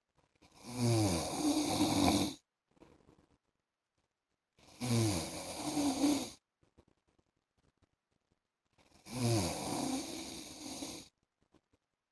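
A man snoring in his sleep: three long snores about four seconds apart, each lasting about two seconds.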